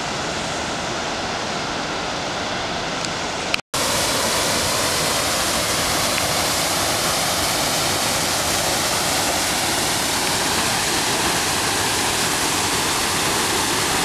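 North Fork of the San Joaquin River rushing through a rock channel, swollen with snowmelt runoff. After an abrupt cut about four seconds in, a waterfall pours into a pool, louder and hissier.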